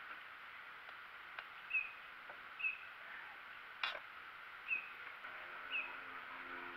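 A bird calling repeatedly: a short, high, slightly falling chirp about once a second. A single sharp click about four seconds in, and a low hum comes in near the end.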